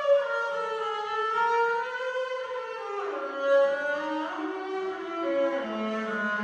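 Bowed string instruments playing slow, sustained notes, several lines at once, sliding smoothly from pitch to pitch.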